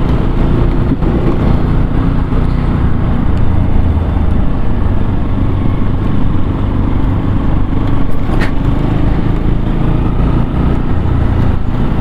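Bajaj Pulsar NS200's single-cylinder engine running as the motorcycle is ridden on the road, under a loud, steady rush of riding noise. There is a single sharp click about eight seconds in.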